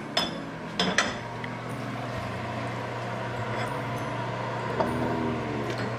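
A serving spoon clinking against a metal cooking pot a few times in the first second or so as macaroni is scooped out, over a steady low hum.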